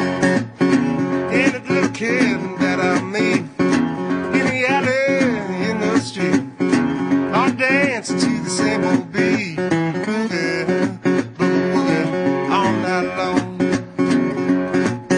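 Background music: a song led by acoustic guitar.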